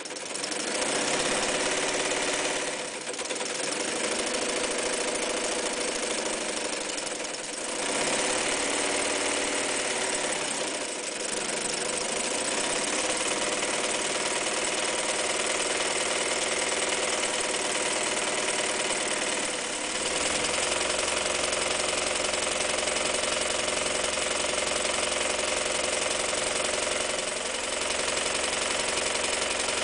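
Seamstress electric sewing machine running continuously, stitching through several layers of heavy fabric, its level dipping briefly a few times as the sewing speed eases.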